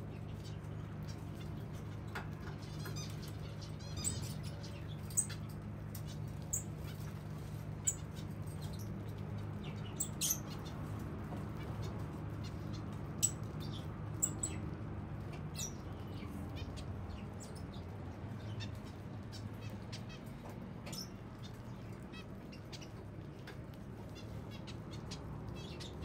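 Small flock of zebra finches giving short, high chirping calls, scattered and frequent, thinning out in the later part, over a steady low hum.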